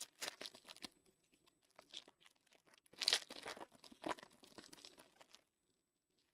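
A trading-card pack's wrapper being torn open and crinkled, in two spells of tearing and rustling, the second and louder one about three seconds in.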